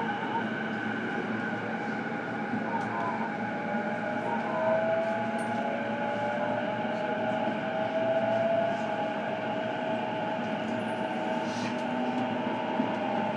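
Inside an E233-series electric commuter train car: the steady hum and whine of the train's electrical equipment. A wavering tone sits over it for a few seconds in the middle, with a few faint clicks.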